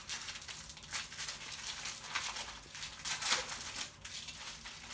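Plastic overwrap of a microwave popcorn bag crinkling in irregular rustles as it is opened by hand.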